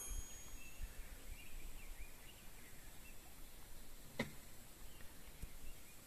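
Quiet outdoor background noise with a few faint chirps in the first couple of seconds, and one sharp click a little past four seconds in.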